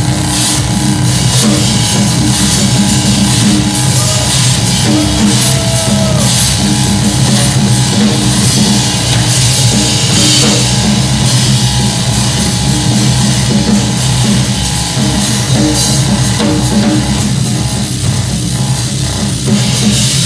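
Live noise music: a drum kit played fast and hard, with cymbals crashing, over loud sustained droning electronics.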